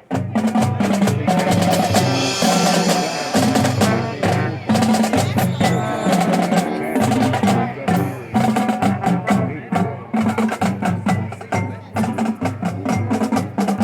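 Marching band playing: sustained brass chords over a busy drumline of snare and bass drums, coming in suddenly at full volume.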